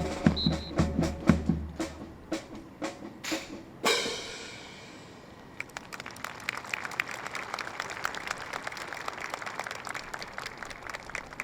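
Drum-led marching music with a steady beat, ending about four seconds in on a final crash that rings away. From about five and a half seconds in, a crowd applauds.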